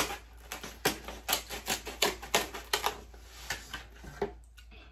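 Styrofoam takeout clamshell containers being handled and opened: a string of sharp squeaky clicks and creaks, several a second, that dies away near the end.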